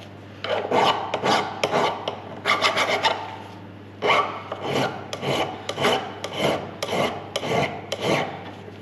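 Hand file rasping across a metal workpiece in short irregular strokes, about two a second, with a brief pause in the middle.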